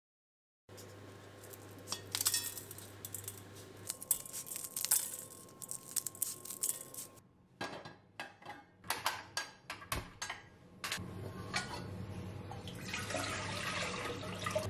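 A kitchen knife chops mushrooms on a cutting board in quick light taps. Then a metal pot clatters onto a gas stove, and near the end water pours into the pot.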